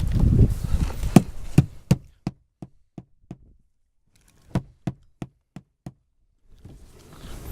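Nails being driven on the roof: two runs of sharp knocks, about three a second, with a short pause between them.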